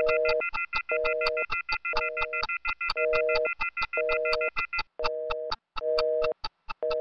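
Electronic end-card jingle: a short synthesized beep repeating about once a second over quick, clock-like ticks, with a steady higher tone underneath that stops about five seconds in.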